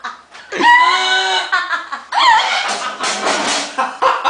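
People's voices: laughter mixed with snatches of unclear speech.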